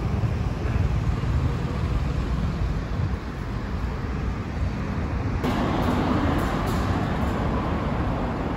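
Road traffic noise beside a multi-lane city road: a steady low rumble of passing cars. About five and a half seconds in, the sound switches abruptly to a brighter, hissier ambience.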